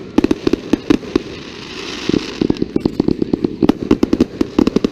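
Aerial fireworks display: a rapid string of bangs, several a second, with a hissing crackle about two seconds in.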